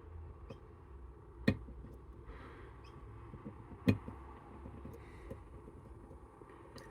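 Two sharp clicks about two and a half seconds apart, among fainter small ticks, as a wire pick made from a binder clip works the pins of a Camlock Series 63 axial lock.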